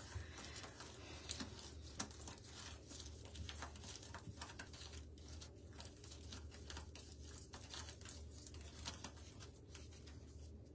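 Faint, scattered light clicks and rustles of small objects being handled by hand, over a low steady room hum.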